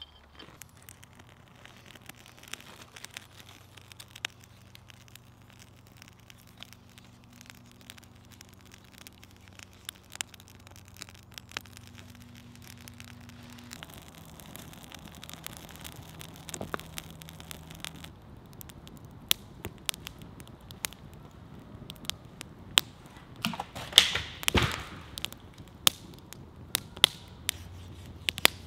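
Wood campfire crackling, with sharp snaps and pops scattered irregularly throughout and a louder cluster of pops about 24 seconds in.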